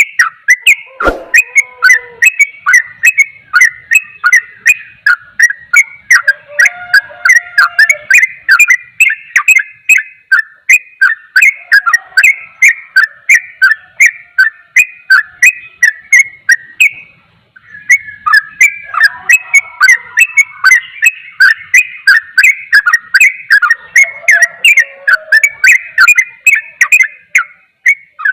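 Yellow-vented bulbul (trucukan) singing a rapid, unbroken run of short, sharp whistled notes, about three a second, in the fast 'ropel' style; the song breaks off for under a second about two-thirds of the way through. A sharp click sounds about a second in.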